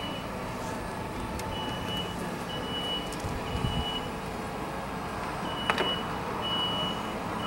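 Smoke alarm sounding its temporal-three pattern: three high, steady beeps about a second apart, then a pause, repeating. It is signalling smoke from the room fire. A steady low rumble runs underneath, with one sharp click a little before six seconds in.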